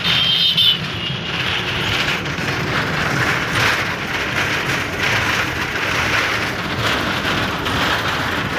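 Inside a moving city bus with its windows open: steady engine and road noise with wind rushing in through the windows.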